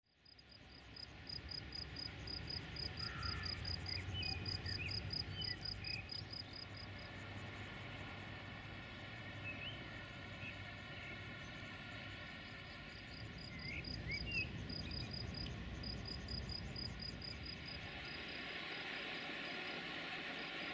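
Crickets chirping in an even, rapid rhythm of about three chirps a second, pausing for a few seconds midway and then resuming. A few brief higher chirps and a low rumble sit underneath, and a steady hiss rises near the end.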